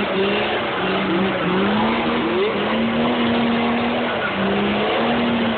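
Off-road buggy's engine revving hard under load as it climbs a steep dirt slope, its pitch held high and stepping up and down.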